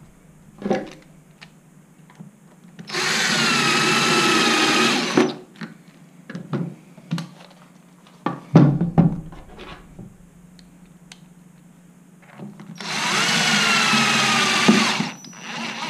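Cordless drill-driver driving screws into a battery casing until firm, running in two bursts of about two seconds each, its motor whine wavering slightly in pitch. Between the bursts come short clicks and knocks as the casing is handled and turned.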